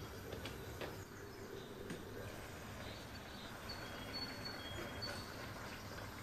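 Faint room noise with scattered short, high-pitched chirps that alternate between two pitches, and a few soft clicks in the first two seconds.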